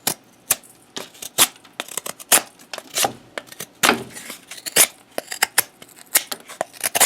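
ESEE Zancudo folding knife's AUS-8 blade cutting into wood in quick strokes, about fifteen short, sharp scrapes at irregular intervals.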